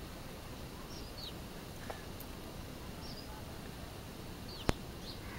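Scattered short, high chirps from birds nesting inside the hut, each a quick falling note, about half a dozen in all. A single sharp click just before the end is the loudest sound, over a steady low background hiss.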